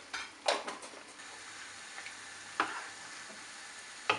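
Yogurt-marinated chicken and garlic paste frying in hot oil in a pan, a steady low sizzle, with a spoon or spatula knocking against the pan a few times as it is stirred.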